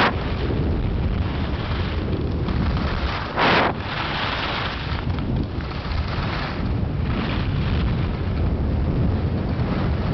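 Wind rushing over the microphone of a skier's camera at high speed, with skis running over groomed corduroy snow beneath it. A brief louder burst of noise about three and a half seconds in.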